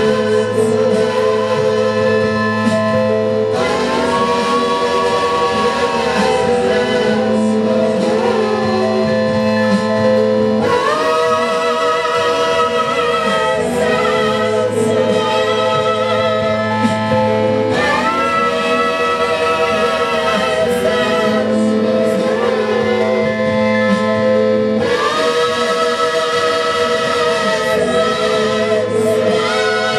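Live band music: a man singing into a handheld microphone over sustained keyboard chords. It is loud and steady, with a musical phrase that starts again about every seven seconds.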